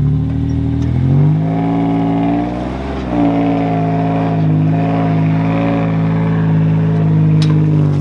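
SUV engine revving under load as it pulls a boat trailer up out of the water. The pitch climbs about a second in, dips briefly around three seconds, then holds steady, and the engine drops away near the end.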